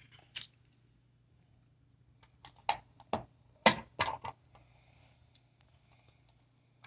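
A handful of short, sharp clicks and knocks at irregular intervals, bunched together about three to four seconds in, over a faint steady low hum.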